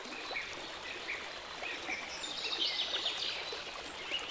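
Birds chirping in short repeated calls over a steady hiss of outdoor background noise, with a brief flurry of calls midway.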